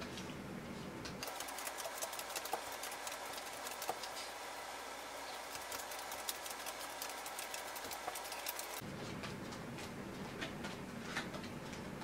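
Playing cards dealt one at a time onto a table mat: a run of light, irregular clicks and slaps over a steady low hiss.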